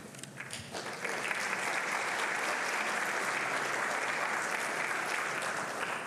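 Audience applauding, filling in about a second in, holding steady, then beginning to fade near the end.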